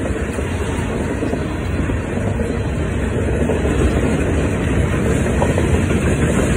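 Double-stacked intermodal freight cars rolling past a level crossing in a steady rumble of wheels on rail, growing a little louder partway through.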